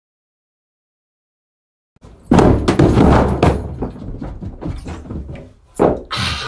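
Silence for about two seconds, then a quick run of heavy thumps and knocks: footsteps coming hard down carpeted stairs. They are loudest at first, then thin out into scattered footfalls, with two sharper knocks near the end.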